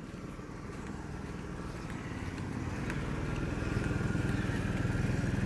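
An engine running with a fast, even pulse, growing louder over the first few seconds and then holding steady.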